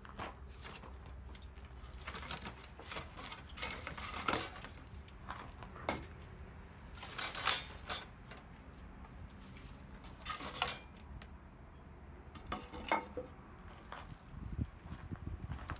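Metal cookware and utensils being handled: irregular clinks and knocks, a few ringing briefly.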